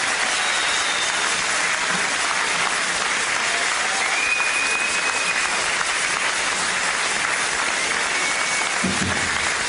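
Large audience applauding steadily, with a few short high calls or whistles in the crowd. A band starts playing just before the end.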